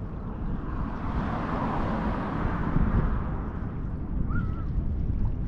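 Wind buffeting the microphone with a steady low rumble, while a wash of water swells up and fades away over about three seconds. A single short chirp sounds near the end.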